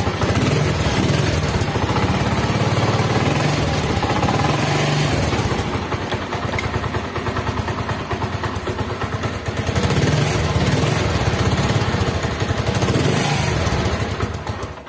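Honda CD 70's single-cylinder four-stroke engine running after a clutch-box repair, its note swelling and easing a couple of times, then shut off near the end. The clutch-side rattle is gone; some exhaust noise remains, which the owner puts down to a split silencer.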